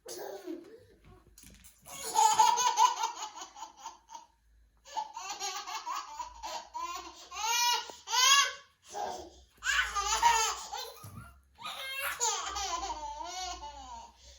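A baby laughing in several fits of belly laughter, with short breaks between them.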